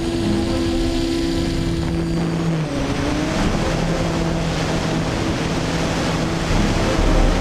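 DJI Flame Wheel F550 hexacopter's six electric motors and propellers buzzing as it lifts off and climbs, heard from the camera it carries: a steady hum over a rushing noise, with the pitch shifting about two and a half seconds in.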